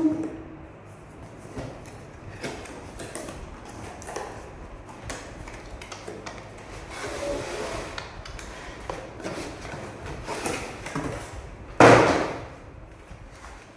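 Handling noises: scattered knocks and rustling, with one loud knock about twelve seconds in.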